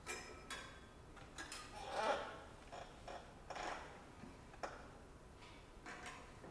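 Faint scattered clicks and light metallic clinks as a French horn is handled, with a louder rustling sound about two seconds in.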